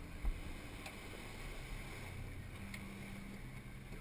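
A boat's engine running with a steady low hum under wind and water noise, and one short knock near the start.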